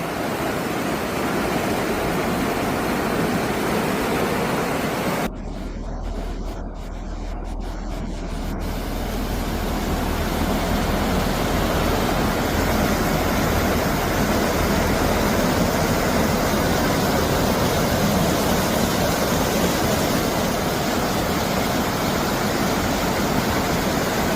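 Floodwater rushing down a flooded wadi, a steady noise with no let-up. About five seconds in it cuts to a second stretch of rushing water, deeper in tone.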